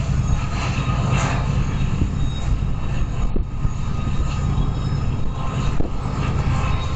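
Canadian National freight train moving slowly, a steady low diesel rumble with a continuous hum.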